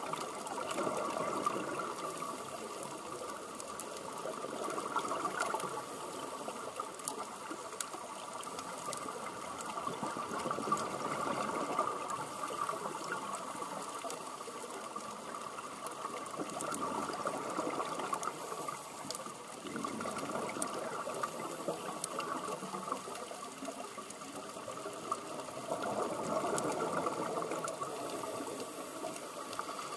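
Scuba regulators bubbling as several divers breathe underwater: a continuous bubbling rush that swells and fades every few seconds.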